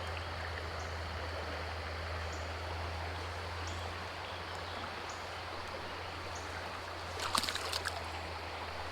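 Creek water flowing steadily over a current run, an even rushing hiss. A few light clicks come about seven seconds in.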